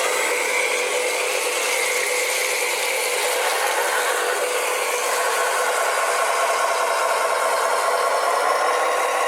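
Small electric motor and gearbox of a radio-controlled model vehicle running steadily, with a whine over a gear rattle.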